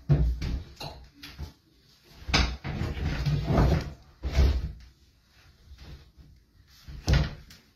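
Heavy stone double-sink vanity top being set down and shifted on the vanity cabinet as it is test-fitted. It makes several dull knocks and scrapes, with a longer run of them in the middle and a sharp knock near the end.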